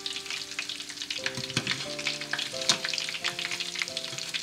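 Hot oil sizzling with a dense crackle as breaded chicken croquettes deep-fry in it.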